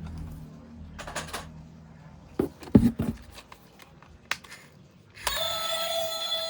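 Clicks and knocks of plastic toys being handled, with a cluster of louder knocks near the middle. About five seconds in, a steady electronic sound with several held pitches starts.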